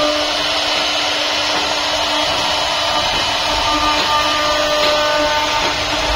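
CNC router spindle running steadily as its bit cuts a design into a door panel: a constant hiss of cutting with a steady whine over it.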